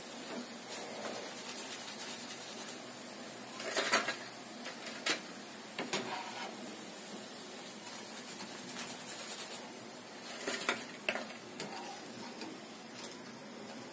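A metal spoon knocking and scraping against a kadhai in a few short clusters, about four seconds in and again about ten seconds in, as fried dal fritters are lifted out of the hot oil. A steady hiss of frying oil runs underneath.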